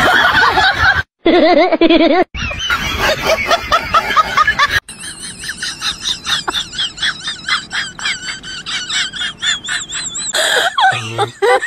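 A fast run of short, high-pitched, wavering laughter-like squeals, several a second, lasting about five seconds, after a few seconds of lower wavering vocal sounds broken by two brief cut-outs.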